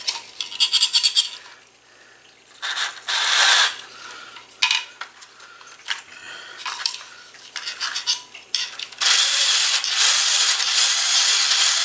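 Small electric motor and gears of a vintage Tyco slot car whirring in short bursts, then running steadily for the last three seconds with a high whine. The cars are running dry, not yet oiled, and one sounds like it needs oil.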